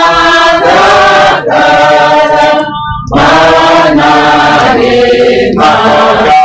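A group of mourners singing a Kikuyu hymn together, many voices in unison, with a short break for breath about three seconds in.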